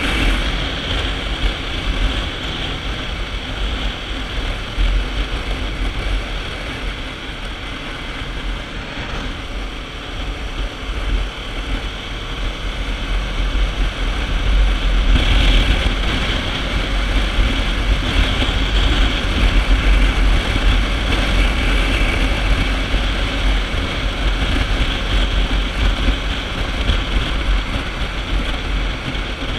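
Wind buffeting the camera microphone on a moving motorcycle, with the Kawasaki Ninja 650's parallel-twin engine running underneath at road speed. It gets somewhat louder about halfway through.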